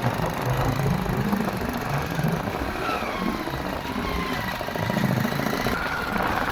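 Vehicle engine running under strain on a rough, uneven track, a rumble with uneven knocking, as the vehicle struggles over the difficult road.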